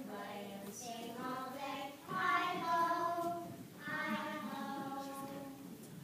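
A group of children singing together, holding notes. The singing is loudest a couple of seconds in and fades toward the end.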